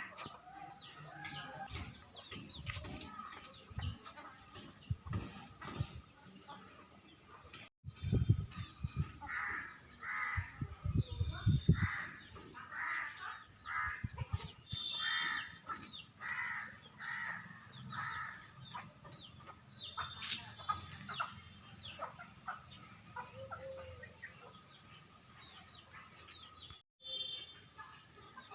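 Chickens clucking, with a run of repeated short calls through the middle. Several loud low thumps come about a third of the way in.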